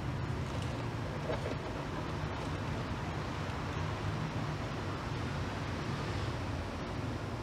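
Steady low rumble of outdoor background noise, with an even hiss above it.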